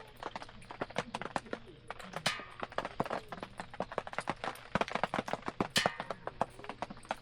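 Wood campfire crackling, with irregular sharp snaps and pops of varying loudness several times a second.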